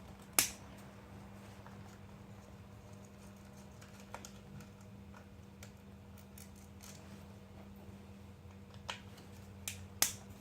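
Sharp metallic clicks and taps from a screwdriver and small screws being worked loose and handled on a motorized bike engine's cover: a loud click about half a second in, a few lighter ones in the middle, and two more clicks near the end, over a faint steady hum.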